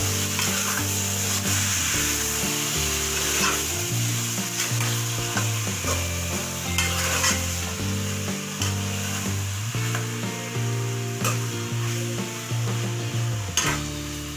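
Marinated chicken pieces sizzling in hot oil with fried onions while being stirred in the pan, with scattered scraping clicks of the spatula against the pan. Soft background music with low sustained notes plays underneath.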